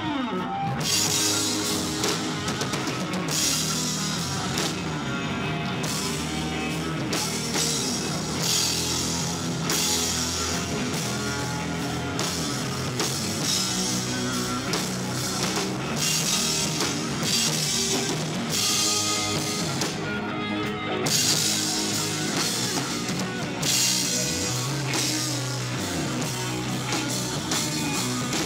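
Rock band playing live, electric guitars over a full drum kit, in an instrumental stretch without singing. It is recorded through a camera's own microphone.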